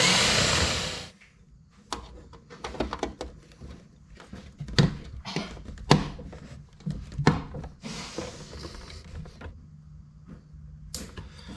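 Power drill running for about a second, boring a hole, followed by a string of sharp clicks and knocks from parts being handled, with a second, softer drill whirr about eight seconds in.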